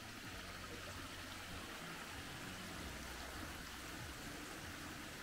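Steady rushing noise of running water, with a faint low hum beneath it.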